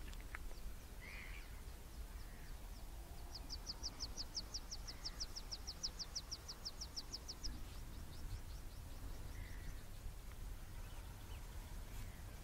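A bird's rapid high-pitched trill, about seven notes a second, swelling up and then fading away, over a steady low rumble of wind across the open mudflats, with a few faint distant calls.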